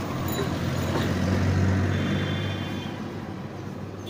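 A motor vehicle driving past, its low engine rumble swelling to its loudest about a second and a half in, then fading.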